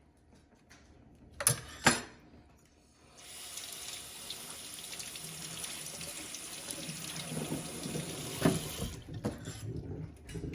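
Two sharp knocks about a second and a half in, then a kitchen tap running steadily for about six seconds, its water flushed through a dishwasher spray arm to test for blocked nozzle holes.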